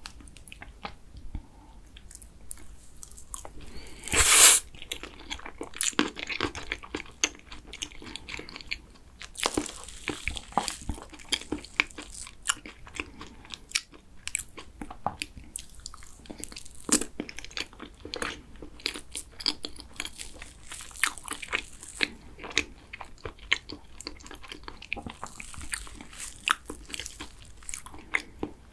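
Close-miked eating sounds: chewing of soft cream cake, and a spoon clicking and scraping in a plastic cake box. Many small clicks and smacks, with one brief louder burst about four seconds in.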